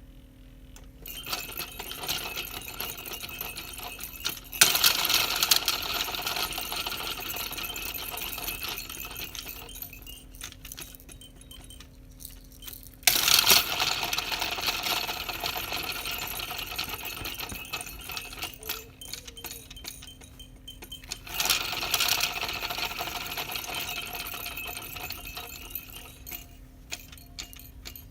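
Baby toys rattling and jingling as they are shaken, in four bursts that each die away gradually.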